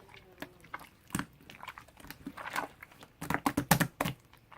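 Marbled slime being squished and poked by hand, giving irregular sticky clicks and pops, with a quick run of louder clicks about three seconds in.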